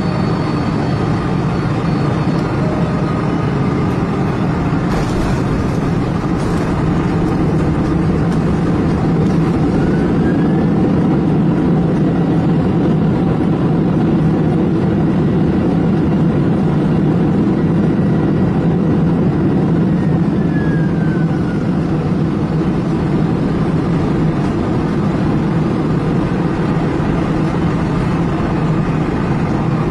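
Aircraft engine noise, a steady loud drone with a faint whine that rises about ten seconds in and falls away about twenty seconds in.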